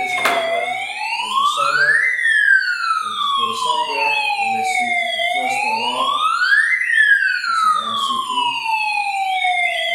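Electronic alarm siren wailing: a steady pitched tone that climbs quickly, then slides slowly back down, about once every five seconds.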